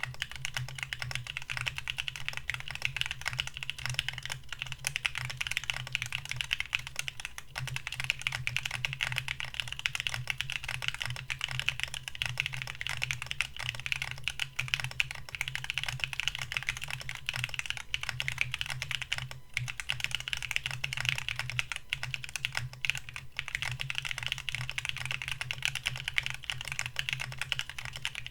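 Fast, continuous typing on a mechanical keyboard fitted with lubed IV Works Brevity tactile switches, a dense run of key clacks with brief lulls about two-thirds of the way through.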